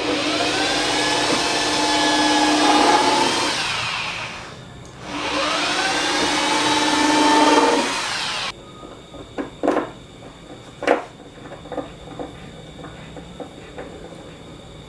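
Circular saw mounted in a homemade table saw, switched on twice: each time the motor's whine rises in pitch as it spins up and runs for three to four seconds. The second run cuts off suddenly, and a few sharp knocks follow.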